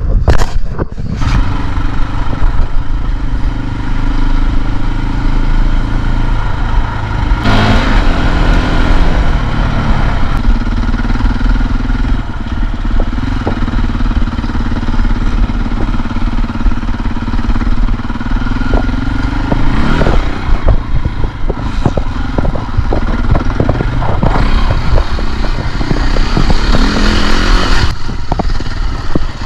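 KTM dirt bike engine running on a trail ride, its pitch changing as the rider works the throttle, with frequent short knocks and clatter, heaviest in the last third.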